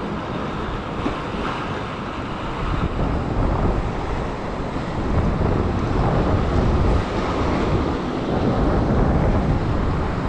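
Ocean surf breaking and washing over a sandstone rock shelf, with wind on the microphone, a steady rushing noise heavy in the lows.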